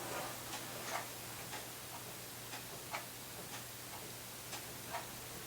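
A 30-inch five-bladed ceiling fan running on low speed: a steady low hum with regular light ticks about twice a second, every fourth one louder.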